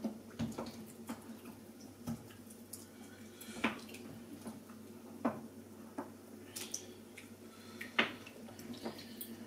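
Wooden spoon stirring tomato stew in steel pots, with scattered light clicks and knocks of the spoon against the pots, the loudest about a third of the way in and near the end. A steady low hum runs underneath.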